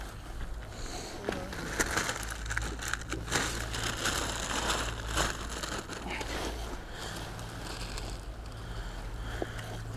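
Close rustling and crinkling with many small scattered clicks, busiest in the first half and thinning out later: handling noise from gear or clothing.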